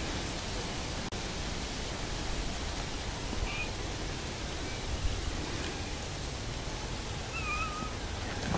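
A kitten mewing faintly twice, once a few seconds in and again, wavering, near the end, over a steady hiss.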